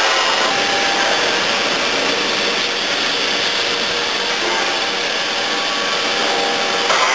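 Steady mechanical running noise of a steel pipe painting plant's handling machinery and conveyors, a continuous hiss with a faint hum.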